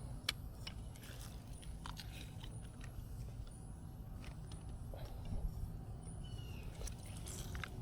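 Quiet outdoor background: a low steady rumble with scattered small clicks and taps, and a faint high chirp repeating about once a second.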